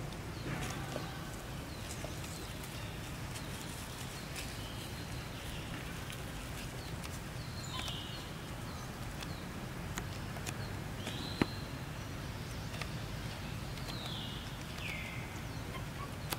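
Outdoor ambience: a steady low background noise with several short, high-pitched chirps that fall in pitch, spaced a few seconds apart, and a single sharp click about 11 seconds in.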